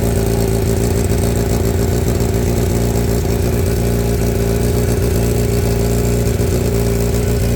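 Motorcycle engine idling steadily through an Akrapovic header with the stock muffler clamped on; the muffler doesn't fit the header properly, so some exhaust escapes at the joint.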